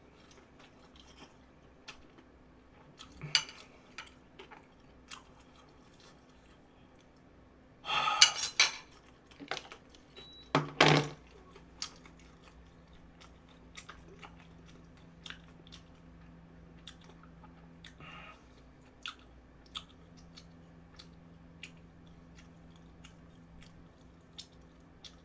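Eating dumplings: chewing with scattered clicks and taps of utensils against a dish. Two louder, noisy bursts stand out about eight and eleven seconds in.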